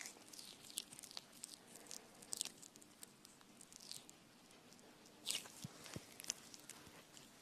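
Faint, irregular small clicks and crackles, mostly high-pitched, with a slightly louder crackle about five seconds in.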